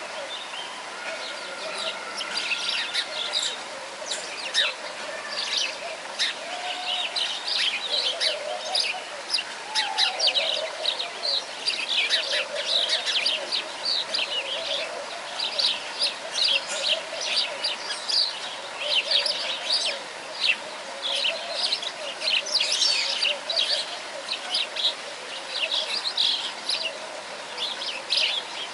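Many small birds chirping steadily in quick, high, overlapping calls, with some lower calls mixed in.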